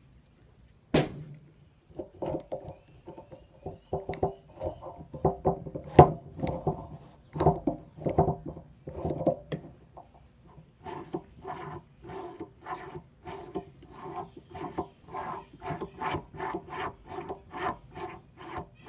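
A Honda Civic clutch master cylinder being pumped by hand to bench bleed it. A sharp knock comes about a second in, then a long run of short strokes that settle at about two a second in the second half. Each stroke pushes brake fluid and the last of the air through the hose back into the reservoir.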